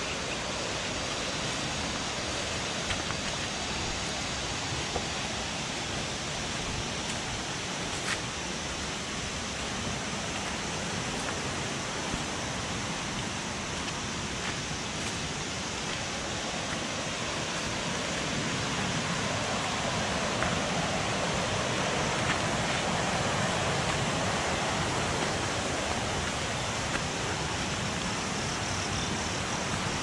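Steady rushing of a nearby rainforest stream, getting a little louder past the middle, with a few faint clicks.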